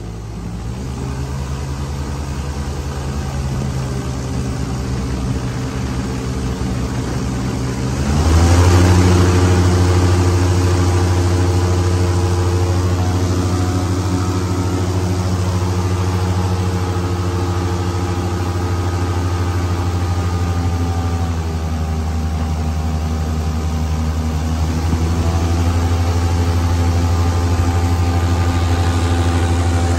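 Airboat engine and propeller running, revving up sharply about eight seconds in and then holding steady at speed, easing off slightly past the middle and picking up again a few seconds later.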